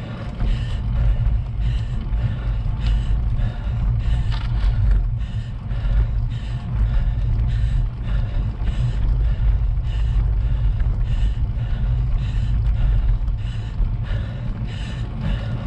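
Bicycle climbing a steep, rough lane slowly: a steady low rumble of tyres and air on the microphone, with the rider's hard, regular breathing from the climbing effort on top.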